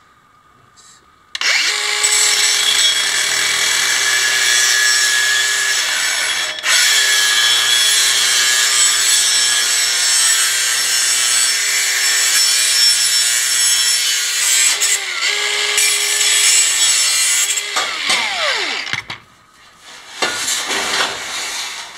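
DeWalt cordless grinder with a cut-off disc cutting through a 3-inch 304 stainless steel tube: a steady motor whine over the hiss of the disc grinding into the metal. It starts about a second in, pauses briefly around six seconds in, and spins down near the end, followed by a few knocks as the tube is handled.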